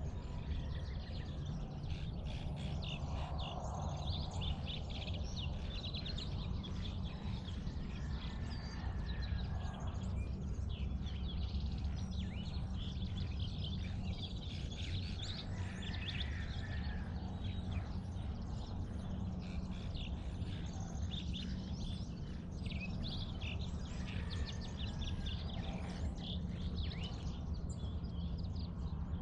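Dawn bird chorus: many birds chirping and calling at once, in quick short notes throughout, over a steady low hum.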